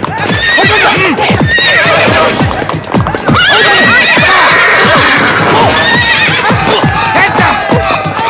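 A troop of horses neighing again and again, with hooves clattering at a gallop, over background music in a film soundtrack.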